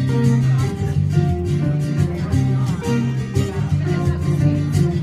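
Acoustic duo music: an Adamas mandolin played through an octave pedal picks the melody over an Ovation LX acoustic guitar's chords, in a bossa nova tune.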